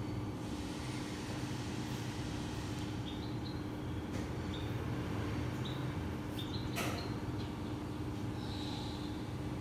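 Steady low background rumble with a constant hum, a few faint high chirps, and a single sharp click about seven seconds in.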